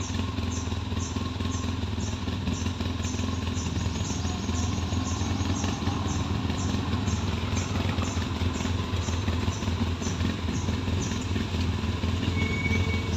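ATV engines running steadily at low speed on a dirt track, a continuous low drone. A faint high ticking repeats about three times a second through most of it.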